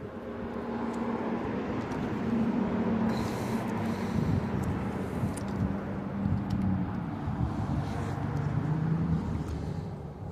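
A motor vehicle passing by: its engine and tyre noise grow louder over the first few seconds, hold, then fade away near the end, the engine note dropping slightly in pitch as it goes.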